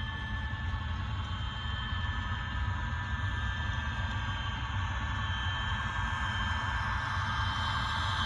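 HO scale model diesel locomotive running: a steady low engine rumble with a steady whine over it, growing a little louder near the end.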